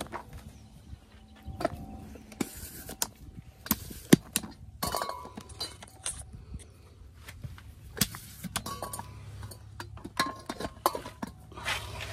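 Scattered clinks, clicks and knocks of hand tools and metal parts being handled at a car's bare front wheel hub, with a few short hisses.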